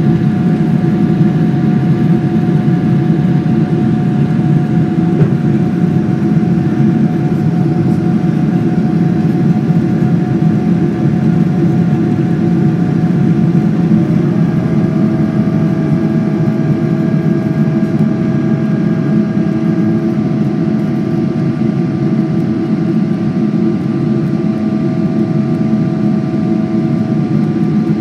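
GE90 turbofan engines of a Boeing 777-300 heard inside the cabin, a loud, steady roar with a thin whine on top. About halfway through, the whine steps down slightly in pitch.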